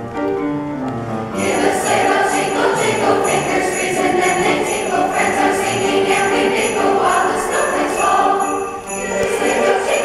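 An instrumental introduction of steady pitched notes. About a second and a half in, sleigh bells start jingling in a steady beat and a youth choir comes in singing over the accompaniment.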